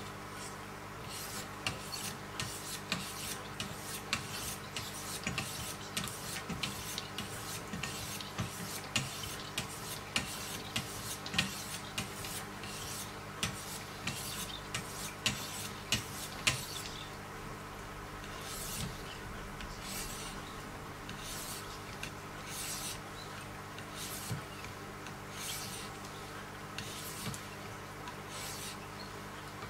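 1000-grit stones of a Wicked Edge guided sharpener stroked along the edge of a clamped Hogue EX-03 knife blade: a quick run of rasping strokes, about two to three a second, turning softer and slower about halfway through.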